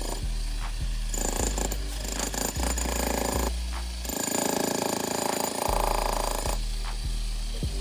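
Background music with deep sustained bass notes that change pitch every second or so, over a pulsing mid-range layer.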